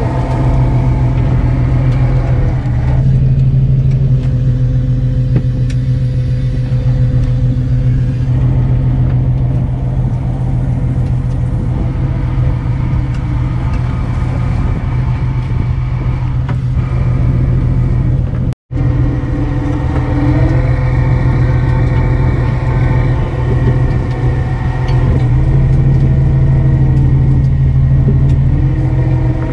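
Fishing boat's engine running at a steady speed, a constant deep hum with a droning tone above it. The sound cuts out for a moment about two-thirds through.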